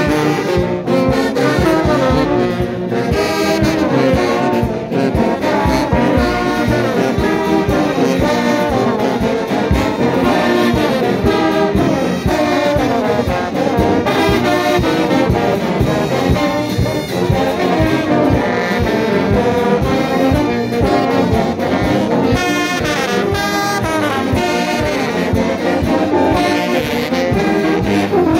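Brass band playing loudly up close: sousaphones carrying the bass under trumpets and other brass horns, with a steady beat.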